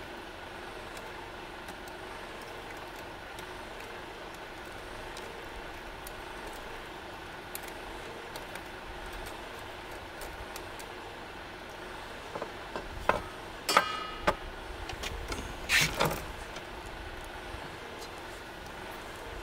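Metal clinks and knocks from handling a small canister camp stove and its metal parts: a cluster of them about two-thirds of the way in, one ringing briefly. Under them a steady low background hum.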